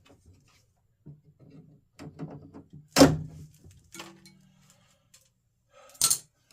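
Handling noise from hand tools and door-latch parts: small clicks and rustling, a sharp knock about three seconds in, and a second knock near the end.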